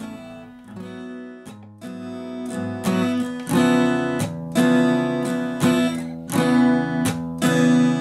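Music with a strummed acoustic guitar, quiet at first and getting much louder about three seconds in.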